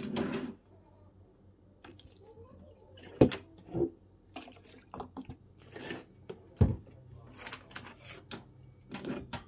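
Sake poured from a paper carton into a stainless steel bowl of sculpin roe, splashing and dripping as the roe is rinsed in it, with a few sharp knocks of the carton and bowl. The loudest knock comes about two-thirds of the way through.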